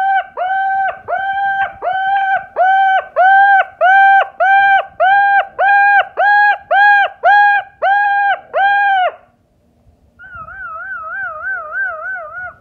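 Moluccan cockatoo calling in a fast, even series of short, clean calls, about two and a half a second, each dipping in pitch at its end. After a brief pause near the end it gives a warbling call that wavers up and down.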